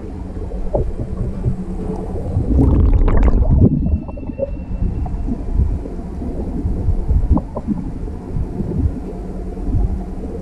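Water sloshing and rumbling as heard through a camera held underwater, low and muffled, as a hand releases a Chinook salmon; a louder splashy burst comes about three seconds in.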